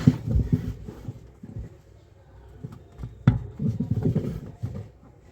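Hand rummaging inside the spin tub of a semi-automatic washing machine, checking for more trapped cloth: low thumps and rubbing, with one sharp knock about three seconds in.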